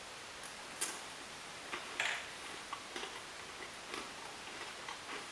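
Faint, crisp crunches and clicks of someone biting and chewing a dry Russian army cracker (galeta), a few sharp ones roughly a second apart.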